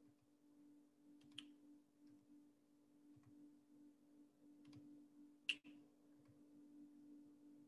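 Near silence with a faint steady hum and a few soft computer mouse clicks, the sharpest about five and a half seconds in.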